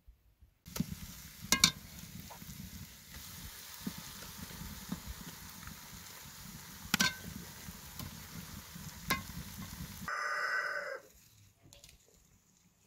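Lamb meat and onions sizzling in hot oil in an aluminium pot, with three sharp metallic clinks of the slotted spoon against the pot. Near the end the sizzling cuts off and a farm animal calls once for about a second.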